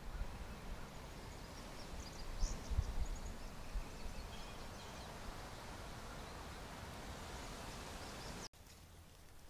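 Trail camera outdoor ambience: a steady hiss over an uneven low rumble, with a few faint, high bird chirps about two to three seconds in. The sound drops off abruptly near the end.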